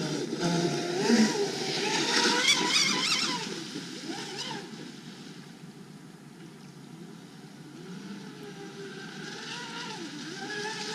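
Traxxas M41 radio-controlled boat running on the water, its brushless electric motor whining and gliding up and down in pitch with the throttle. Loudest in the first few seconds, it fades away, then grows louder again near the end.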